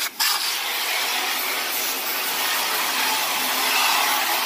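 Hose nozzle spraying a jet of water against an aluminum pontoon hull: a steady hiss of spray that stops for a moment right at the start, then runs on evenly. The spray is rinsing cleaner off the hull.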